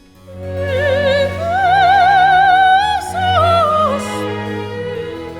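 Background music: a high operatic voice singing long held notes with wide vibrato over steady low accompanying notes. The voice comes in about half a second in, climbs to a long high note, then steps down and fades near the end.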